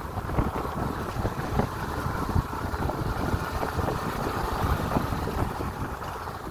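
Motorcycle engine running at low riding speed on a gravel road, with wind buffeting the microphone in irregular low gusts.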